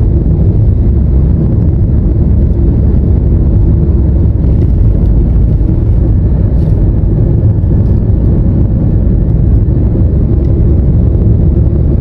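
Steady low drone of a car driving along a road, heard from inside the cabin: tyre and engine rumble with some wind noise.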